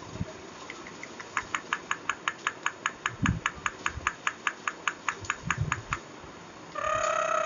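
Indian ringneck parrot making an even series of short, clicking chirps, about five a second for several seconds, then one drawn-out call near the end.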